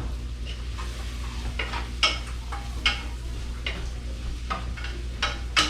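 Sliced shiitake mushrooms sautéing in butter in a pan: a faint sizzle under irregular scrapes of a utensil stirring them, the sharpest about two and three seconds in and near the end, over a steady low hum.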